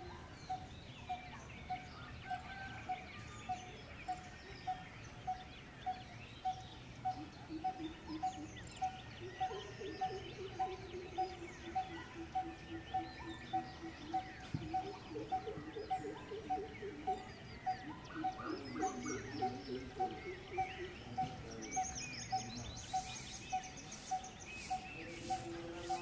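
Coppersmith barbet giving its metronomic 'tuk tuk tuk' call: a single hollow note repeated evenly, about one and a half a second.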